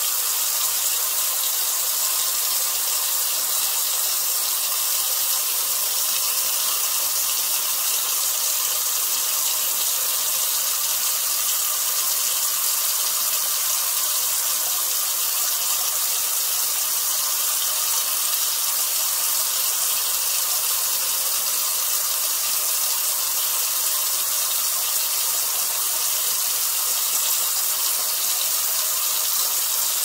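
A steady stream of water pouring into a plastic colander basket and splashing on its perforated bottom, an even, unbroken splashing that does not change.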